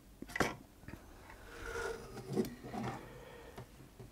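Handling noise from a sewing-machine circuit board being turned over on a wooden bench: a sharp click about half a second in, then soft rubbing and a light knock.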